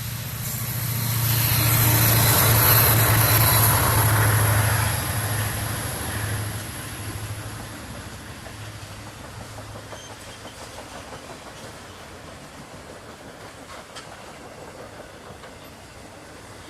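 A New England Central freight train passing, led by two EMD diesel-electric locomotives (an SD40-2 and a GP40-2). A low, steady diesel engine drone swells over the first few seconds and then fades, leaving the steady rolling of freight-car wheels on the rails with an occasional click.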